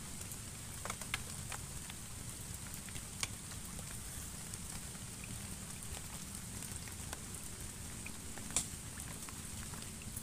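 Steady rain falling on the pond and surrounding vegetation, an even hiss with a few scattered sharp ticks of drops striking close by.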